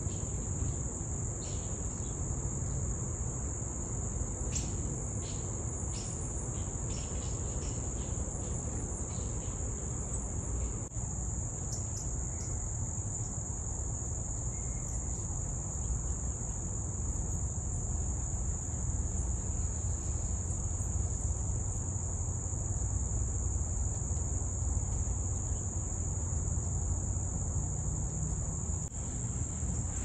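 Crickets trilling in a steady, unbroken, high-pitched chorus, with a few short bird chips in the first ten seconds or so and a steady low rumble underneath.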